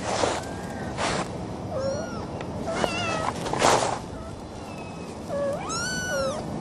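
Kittens about four and a half weeks old mewing: several short high mews that rise and fall, and one longer mew near the end. Short bursts of noise come in between, the loudest about halfway through.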